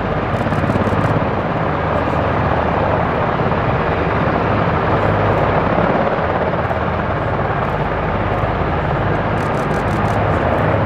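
Loud, steady aircraft noise with a rapid low beat running through it.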